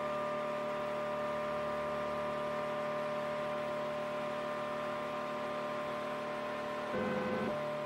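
3D printer running, a steady whine of several held tones with a soft hiss, changing tone briefly about seven seconds in.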